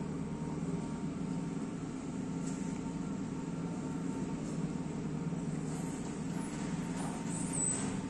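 JCB 3CX backhoe loader's four-cylinder diesel engine running steadily under load while the backhoe arm works against a mud wall.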